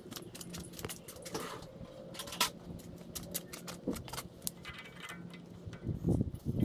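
Small metal clicks and clinks of pliers working a cotter pin out of a truck's front axle nut, with a few louder knocks about six seconds in. A faint steady hum runs underneath.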